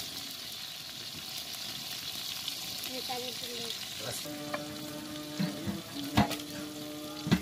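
Fish pieces frying in oil in a metal karai, a steady sizzle as a ladle stirs them. The sizzle thins about four seconds in, and two sharp knocks stand out near the end.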